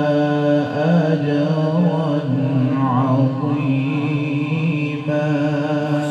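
A man's voice reciting the Quran in the melodic tajweed style, holding long notes with quick wavering, ornamented turns in between.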